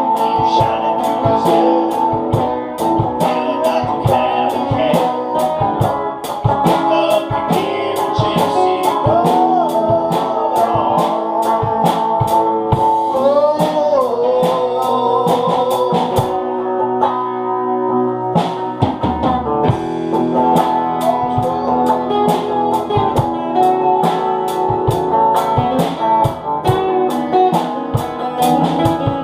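Band music in a blues style: electric or acoustic guitar over a steady drum-kit beat, with a gliding melodic line that may be a voice or guitar. The drums drop out for a couple of seconds past the middle, then come back in.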